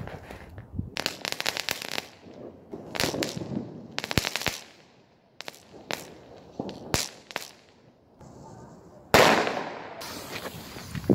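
New Year's Eve fireworks and firecrackers going off: several quick strings of sharp cracking bangs, then one much louder bang about nine seconds in that rings out for about a second.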